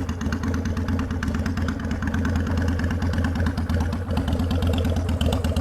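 Honda Shadow 750 V-twin idling steadily through Vance & Hines Straightshots exhaust pipes, on a little choke while it warms up, its pilot screw freshly adjusted.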